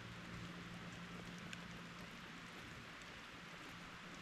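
Steady rain falling, an even hiss with a few sharper drip ticks, over a low steady hum.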